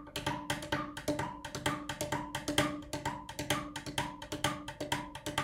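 An orange boomwhacker, a tuned plastic tube, struck over and over in a quick even rhythm of about four hits a second. Each hit gives a short, hollow tone at one steady pitch.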